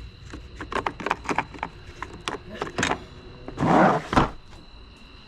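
Metal hand tools clinking and knocking in quick, irregular strokes, as when rummaging through a socket set, then a louder scraping rattle about three and a half seconds in, ending with a sharp knock.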